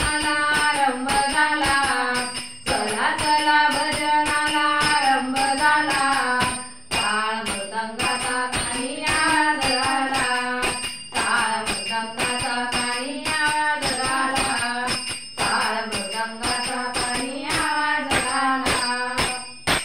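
Marathi bhajan music: a melody carried over taal, small hand cymbals struck in a steady jingling beat. It cuts off suddenly at the end.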